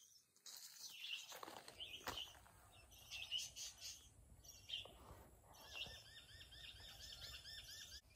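Songbirds chirping faintly, with one bird breaking into a fast run of repeated arched whistled notes, about five a second, in the last two seconds.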